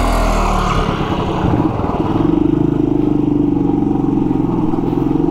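Motorcycle engine running at a steady road speed, heard from a camera mounted on the bike. The exhaust note settles and holds even from about two seconds in.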